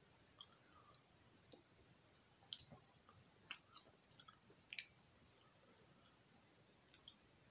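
Faint chewing of bubblegum: soft, scattered mouth clicks, a few sharper ones in the middle.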